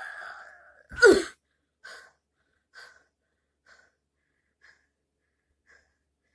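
A person's drawn-out breathy groan, then a loud, sharp gasping cry that falls steeply in pitch about a second in. Five ever-fainter short breathy sounds follow about a second apart and die away.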